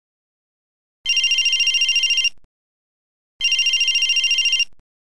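Mobile phone ringing for an incoming call: two rapid trilling rings, each a little over a second long, about a second apart.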